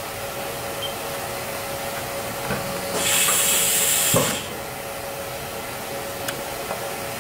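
A loud burst of compressed-air hiss about three seconds in, lasting just over a second, from a Haas VF-2SS mill's spindle tool release as the indicator holder is put into the spindle. It ends in a short knock as the holder is clamped. A steady machine hum runs underneath.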